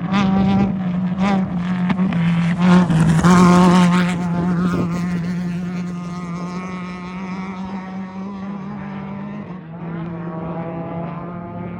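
Off-road race vehicle engine running at high revs, loudest as it passes close by about three seconds in, then fading gradually into the distance.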